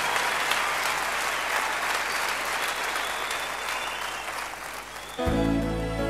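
Audience applauding in a large hall, slowly dying away. About five seconds in, soft ballad music starts suddenly with sustained notes.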